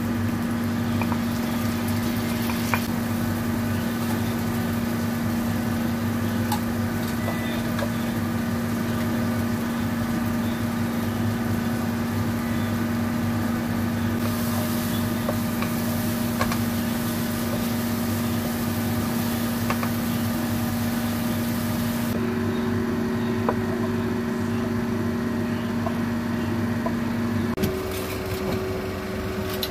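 Steady electric motor-and-fan hum in a home kitchen, with frying from tomato and scrambled egg in a wok. Near the end the hum drops away and a different, higher hum is left.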